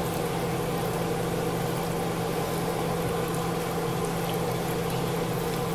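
Steady low machine hum with a constant pitch, such as a fan or appliance motor, unchanging throughout.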